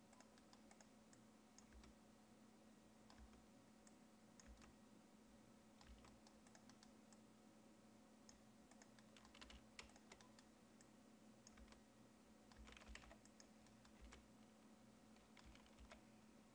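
Faint, scattered clicks of computer keyboard keys being pressed, with a few quick clusters of presses past the middle, over a low steady hum.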